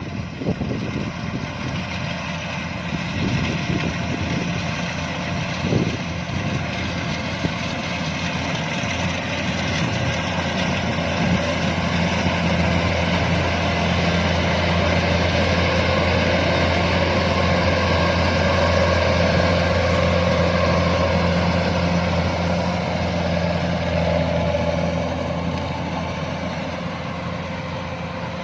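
Kubota DC-105X combine harvester's diesel engine running steadily with its threshing machinery, growing louder toward the middle and fading again near the end.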